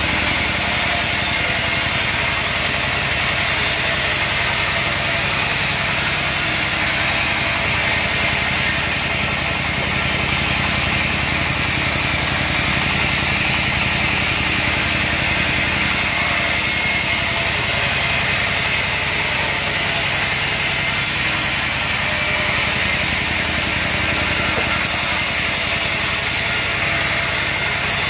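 Diesel-driven band sawmill running steadily while its band blade cuts lengthwise through a squared log. The engine's tone sits under a constant high hiss from the cut.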